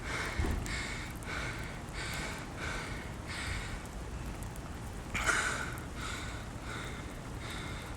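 A man breathing hard and rhythmically while sprinting uphill, about two breaths a second, with a louder gasping breath about five seconds in.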